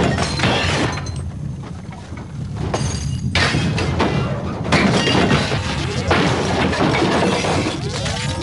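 Crashing and glass-breaking sound effects over music, coming in noisy waves with short breaks. Near the end a rapidly warbling electronic tone begins.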